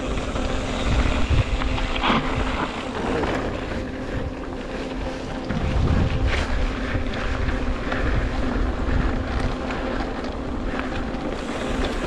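Wind rushing over the microphone and tyres rumbling over a dirt trail as a mountain bike is ridden downhill, with scattered knocks and rattles from the bike over rough ground.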